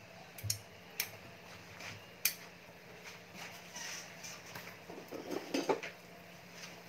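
A spatula knocking and scraping against an aluminium wok as marinated chicken pieces are turned, with a few sharp clicks in the first couple of seconds and softer handling sounds a little later.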